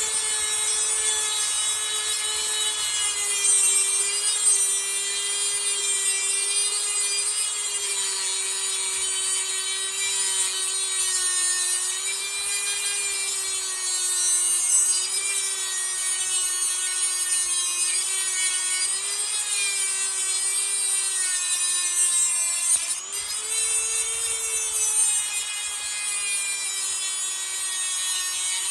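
Dremel rotary tool with a reinforced cut-off wheel cutting through a metal push nut cap on a hand truck axle: a steady high whine with a gritty grinding edge, its pitch wavering as the wheel bites. Late in the cut the sound briefly dips and the pitch jumps up for a couple of seconds.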